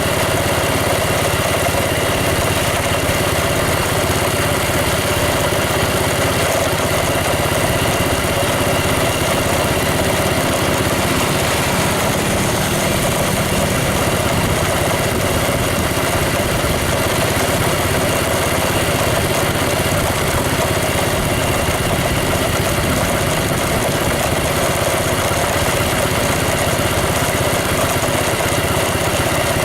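An engine running steadily, with a constant hum and no change in pace.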